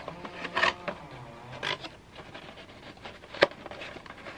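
Gloved hands handling a cardboard model-kit box, with short rubbing and scraping sounds and one sharp click about three and a half seconds in.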